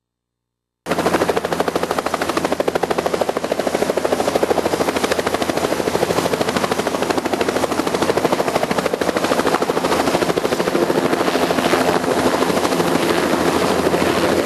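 Bell 206L-4 LongRanger helicopter running, its rotor chopping in a rapid, even beat; the sound starts abruptly about a second in.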